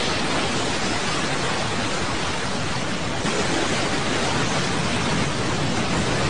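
Anime sound effect of a huge blast's shockwave: a loud, steady rushing noise of wind and flying debris.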